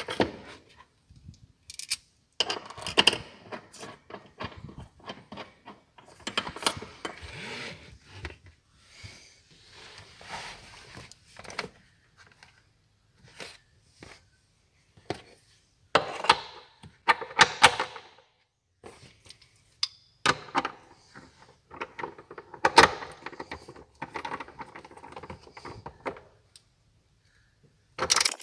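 Hand tools being worked on car interior hardware: a socket and ratchet wrench clicking and clattering, with knocks and scrapes from the seat belt anchor and plastic trim. The sounds come irregularly, with short quiet gaps between them.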